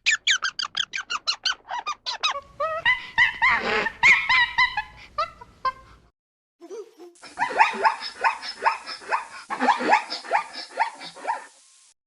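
Animal calls: fast runs of short, high, squeaky chirps and yelps, each falling in pitch. They break off about six seconds in, and a second run of similar calls follows in a new clip.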